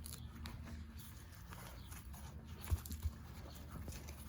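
Digging in garden soil by hand to unearth potatoes: faint scraping and rustling of earth, with two soft low thumps in quick succession about three quarters of the way in, over a steady low hum.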